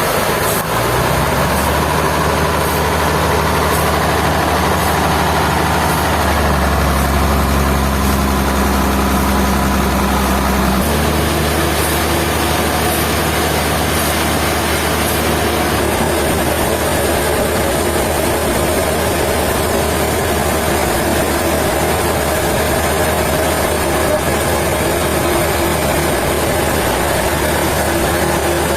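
A heavy engine running steadily, its low note shifting around six and again around eleven seconds in.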